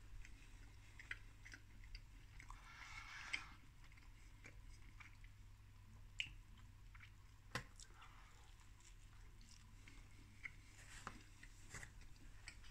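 A person faintly chewing a mouthful of pizza, with scattered soft mouth clicks, over a low steady hum.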